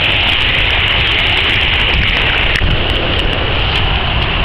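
Waterfall's steady, loud rushing roar, with a low rumble underneath.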